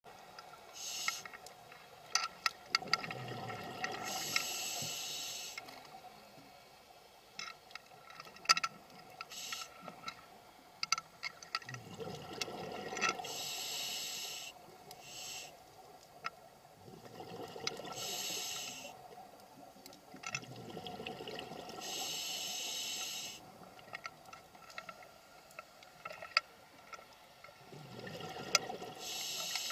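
Scuba diver breathing through a regulator underwater. Each breath is a low bubbling rush of exhaled air followed by the high hiss of an inhale, about five breaths in all, with scattered sharp clicks in between.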